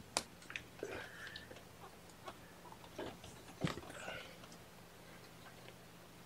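Young kittens, about three and a half weeks old, giving a couple of faint short mews while they scramble about on a blanket, with scattered small clicks and rustles from their movement and handling; two sharper clicks stand out, one right at the start and one a little past the middle.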